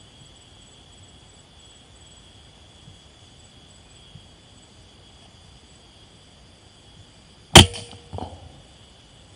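A single air rifle shot near the end: one sharp crack with a short ring, then a fainter knock about half a second later. The shot is a miss.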